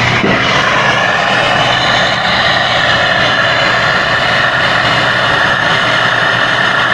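Gas brazing torch burning steadily with a constant hissing roar, its flame playing on a copper refrigerant tube joint to braze it.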